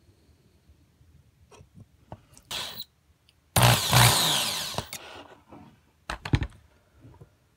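Power drill running in short bursts while drilling out the rivet post of a die-cast toy car's base. One brief burst is followed by a louder one of about a second and a half that trails off, then a few sharp clicks.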